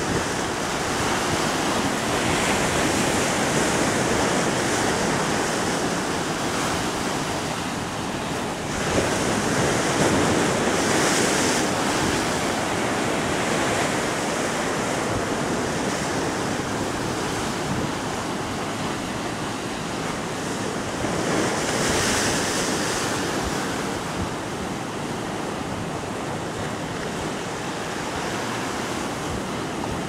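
Caribbean Sea surf breaking against rocks and a concrete seawall, a continuous wash of water. Two louder breakers crash about nine seconds in and again about twenty-one seconds in.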